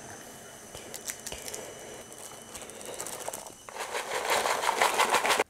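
Foil seasoning packet crinkling as it is handled and torn open, with scattered small ticks. A louder, busier rustle runs through the last two seconds and cuts off suddenly.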